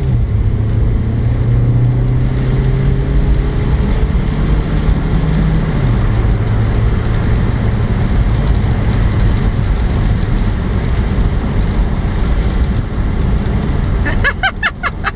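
Car engine with tyre and wind noise, heard inside the cabin while the car accelerates. The engine's hum steps down in pitch near the start and again about six seconds in.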